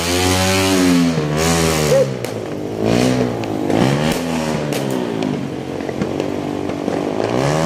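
Motorcycle engine revving up and down over and over, its pitch rising and falling every second or two. Faint firework cracks sound in the distance.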